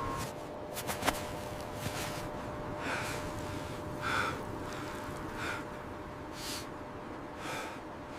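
A man's heavy, gasping breaths, short and about one a second, the breathing of someone exhausted and near collapse in the cold.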